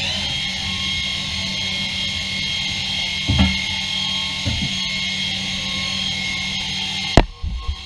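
Mazak Variaxis 630-5X II 5-axis machining center running, with a steady high-pitched whine over a low hum and a couple of dull knocks. About seven seconds in, a sharp click comes and the whine cuts off suddenly.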